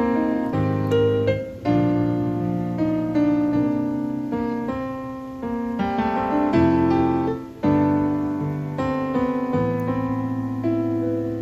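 Background piano music, with notes and chords struck in turn and left to ring.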